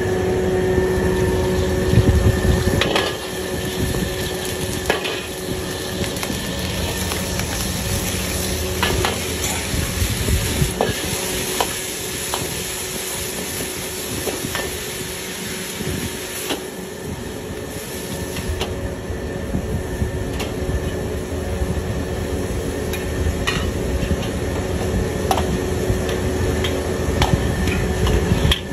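Food sizzling and frying in a hot wok while a metal spatula stirs, scrapes and knocks against the pan, with scattered sharp clanks throughout over a steady noise.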